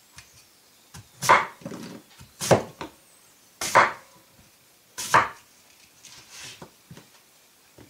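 Chef's knife cutting through an apple and striking a wooden cutting board: four loud, sharp cuts a little over a second apart, with a few fainter knocks between them.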